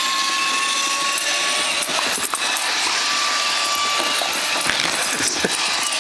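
Roomba robot vacuum running: a steady whine from its vacuum motor over the even rush of its fan and brushes, with a few sharp clicks.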